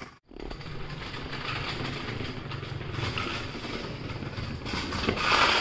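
Electric go-kart running on an electric longboard's motor, rolling over brick paving with a steady rumble of wheels and motor. It grows louder about five seconds in.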